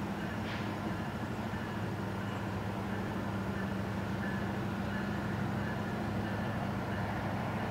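Diesel freight locomotives running as the train approaches from a distance: a steady low drone.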